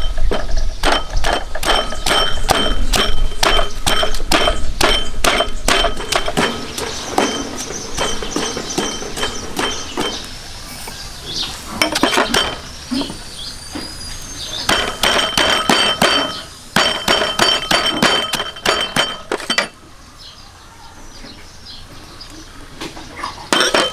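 Rapid metallic clinking, about four strikes a second, each with a short ringing tone. It comes in two long runs with a gap of a few seconds between them, from a metal kitchen utensil striking repeatedly during food preparation.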